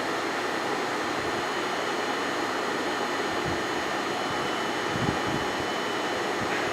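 Steady, even hiss of moving air, like a fan or blower running, with a couple of faint soft knocks about five seconds in.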